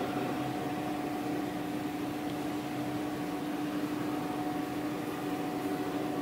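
Wuxi WD269-series diesel engine of a 500 kW standby generator set running at a steady speed: an even mechanical hum with a constant droning tone.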